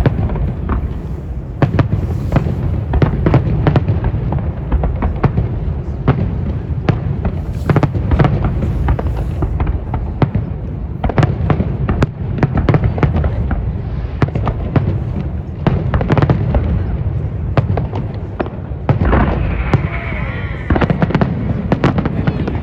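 Fireworks going off without a break: many sharp bangs and crackles in quick succession over a low, continuous rumble of booms. About nineteen seconds in come several whistling glides that rise and fall.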